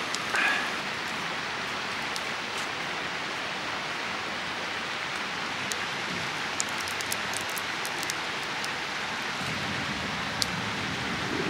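Spicy fish roe stew boiling in a pan on a portable gas stove: a steady bubbling hiss, with a brief clink near the start and a few light clicks later on.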